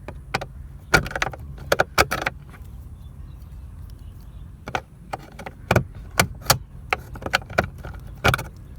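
Irregular sharp plastic clicks and knocks from the Proton Saga glove box's latch and lid being worked open by hand. There are a few close together around the first two seconds, then a denser run in the second half.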